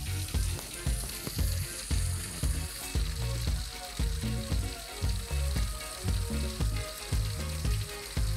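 Heavy rain pouring down in a steady hiss, with frequent short, low thuds through it.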